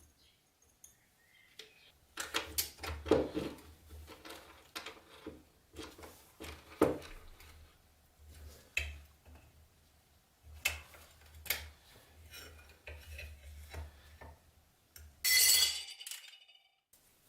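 Small metal lock parts clinking, clicking and scraping as they are handled and worked, with a brief louder hiss near the end.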